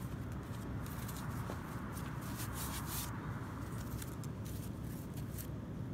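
Scuffling and rustling in dirt and dry corn stalks as a trapped coyote is held down with a catch pole and handled, coming in bursts over a steady low rumble.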